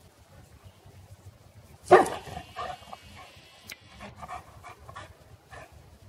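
Boerboel (African mastiff) barking at an unfamiliar object: one loud bark about two seconds in, then several softer barks.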